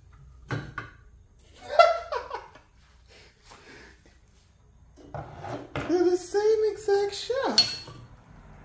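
A person's voice, vocalizing without clear words in two spells, with a few short clicks of hand tools being handled.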